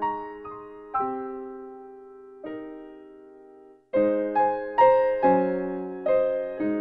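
Background piano music: single notes and chords that ring and fade, thinning out and stopping briefly about four seconds in, then starting again with fuller, louder chords.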